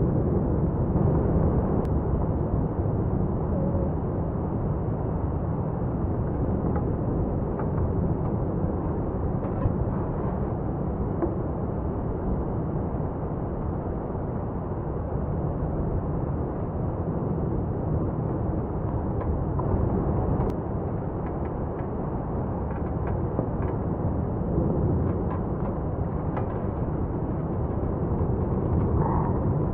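Steady low rumble of Mount Etna's South-East Crater in paroxysmal eruption, lava fountaining and flowing, with a few faint pops scattered through it.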